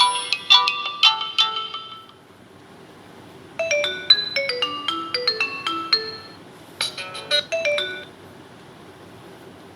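JioPhone ringtones playing: a melody of short electronic notes ends about two seconds in, and after a brief pause another tune of quick, bright, plucked-sounding notes plays, followed by a shorter burst of the same kind of notes near eight seconds in.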